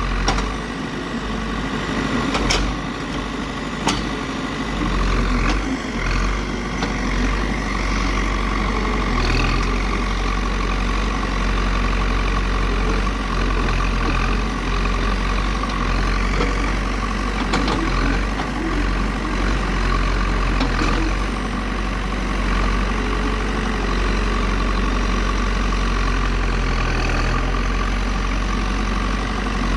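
Diesel engine of heavy construction machinery running steadily at a low, even speed, with a couple of sharp knocks in the first few seconds.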